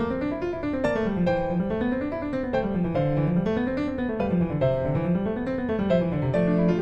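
Background instrumental music: a melody over a low line that rises and falls in regular waves, about one wave a second.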